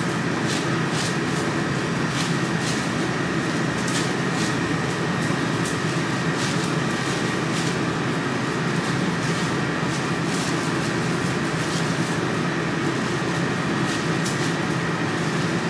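Steady machinery hum, with light knife strokes slicing raw New York strip steak against a cutting board about once a second.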